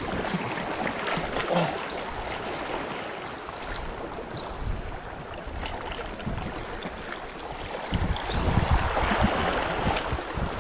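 Ocean surf washing against rocks, a steady rushing, with wind buffeting the microphone more heavily from about eight seconds in.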